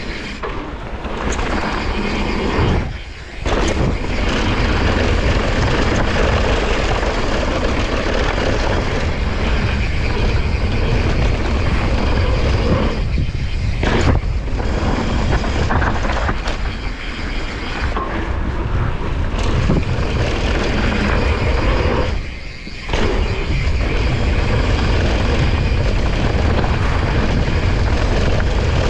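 Wind rushing over the helmet or chest camera's microphone as a Santa Cruz Nomad mountain bike descends a dry dirt trail at speed, with its tyres rolling over the loose dirt. It is a loud, steady rush that drops briefly twice.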